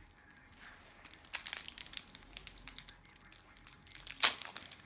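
Trading card pack wrapper crinkling and tearing as a new pack is opened: a run of sharp crackles, the loudest about four seconds in.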